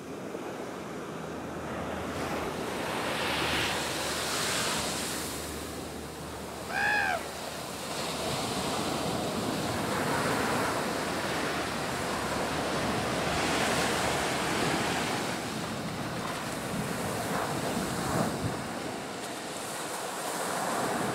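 Ocean surf breaking and washing up the beach, swelling and easing every few seconds, with wind on the microphone. About seven seconds in, a short high call rises and falls once, the loudest sound.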